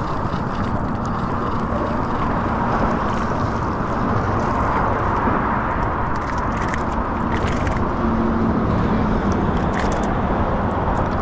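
Steady rushing noise of road traffic on the causeway bridge overhead.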